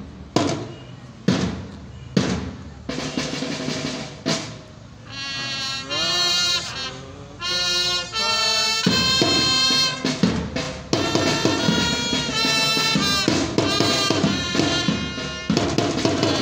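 Parade band music: a few separate loud drum strokes, then from about five seconds in a tune played over the drumming.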